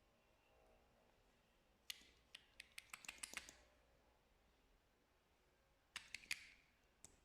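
Slime being handled: two quick runs of small sharp clicks and crackles, the first lasting about a second and a half, the second shorter, with one more click near the end.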